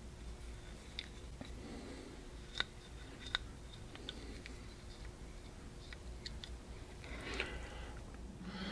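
Handling noise from a double-barrel shotgun being turned over in the hands: a handful of small, sharp clicks and taps, spread out with quiet between them.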